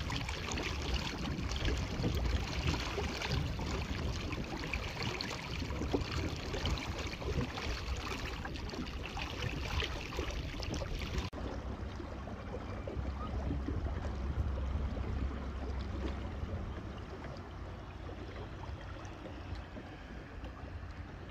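Steady rushing of wind and water around a small fishing boat on a lake, with a heavy low rumble of wind on the microphone. About eleven seconds in it changes abruptly to a quieter, duller rush.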